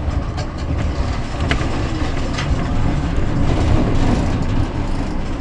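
Tram running along the track, heard from inside its rear cab: a steady rumble of wheels and running gear with a few sharp clicks from the rails. The noise swells around three to four seconds in as a second tram passes on the adjacent track.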